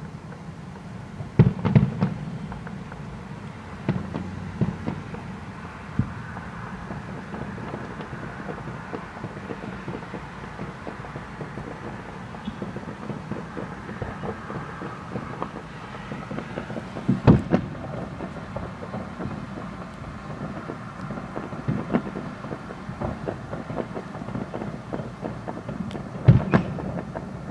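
Aerial fireworks bursting at a distance: a series of sharp booms at irregular intervals, the loudest about seventeen seconds in, over a steady low background rumble.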